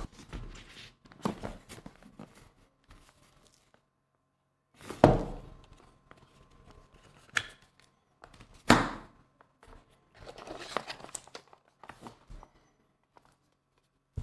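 Handling noise: irregular rustling and crinkling with a few knocks, the loudest a thump about five seconds in and another sharp burst near nine seconds.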